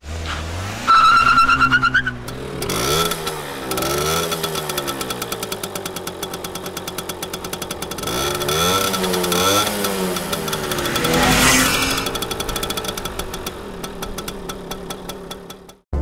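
A motor or engine running, its pitch rising and falling over and over, with a rapid ticking through much of it.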